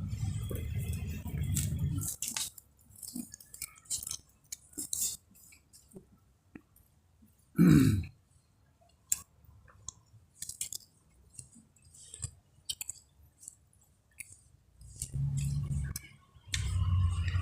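Close-up mouth sounds of a person chewing food in a mukbang: wet clicks and crackles that come and go. About eight seconds in there is one short, loud, low throat sound, like a gulp or a small burp.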